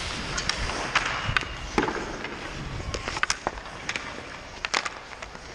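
Ice hockey play heard up close: skates scraping over the ice, with a series of sharp clacks from sticks and puck scattered through.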